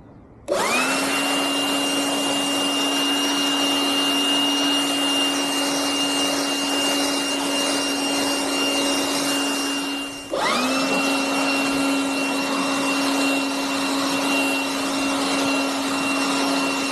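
Abeden HY-8012 cordless blower's brushed motor and fan switched on, spinning up with a rising whine, then running steadily with a high whine over rushing air. About ten seconds in it cuts out for a moment and is switched straight back on, spinning up again.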